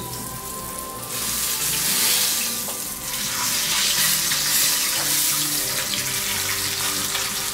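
Racks of lamb sizzling as they sear in hot oil in a skillet. A kitchen tap runs into a stainless steel sink from about a second in, adding a louder hiss.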